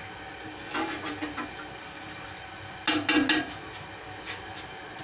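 Steady hiss of a pot of rice and water heating on a stove, with short clatters of a metal ladle stirring in the aluminium pot about a second in and again about three seconds in.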